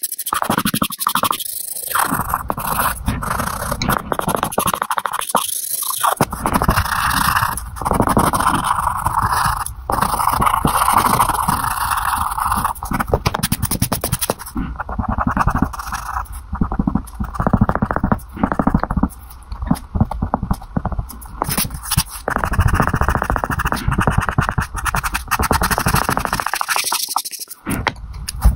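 Coloured pencil scratching on drawing paper in rapid, dense shading strokes, sped up by fast-forwarding, with a few brief pauses between strokes.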